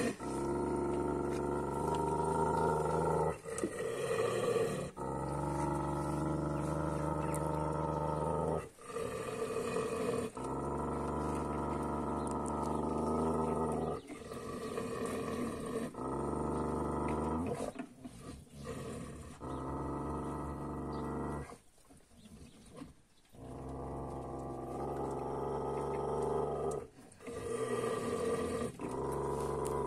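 Dogs growling low and continuously at each other over their food, a warning of a fight at the feeding bucket. The growls run for several seconds at a time, broken by short pauses for breath, with a quieter stretch about two-thirds through.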